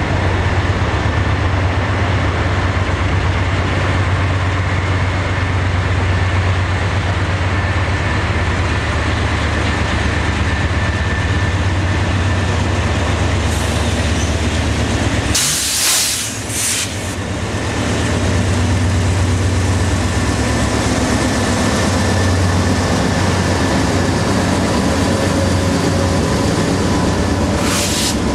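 A BNSF double-stack container train passing close by, led by three GE C44-9W diesel-electric locomotives: a steady low diesel rumble as the engines go by, then the steady rolling rumble of the container well cars. A brief loud hiss about halfway through and a shorter one near the end.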